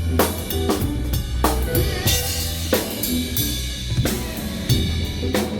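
Live band playing during a sound check: a drum kit with snare, kick and cymbal hits keeping a steady beat over a low bass line.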